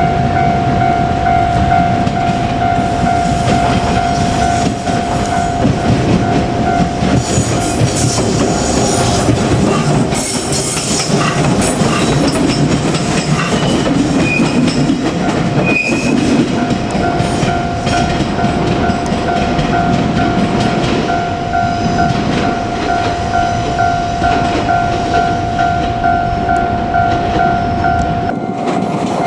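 Japanese level-crossing alarm ringing steadily while a JR Kyushu 817-series electric train passes through the crossing. The wheels clatter over the rail joints from about eight seconds in to about seventeen seconds in, and the alarm keeps ringing after the train has gone.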